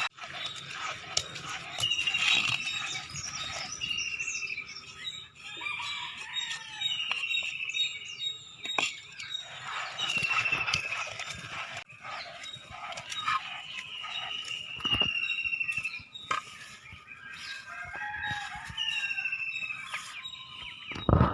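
Birds calling over and over, a string of high, slightly falling calls about a second long each, with scattered short clicks and knocks.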